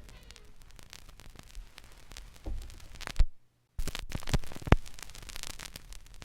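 Record surface noise between sides: steady hiss and crackle with scattered clicks and a few louder pops, broken by about half a second of dead silence about three seconds in.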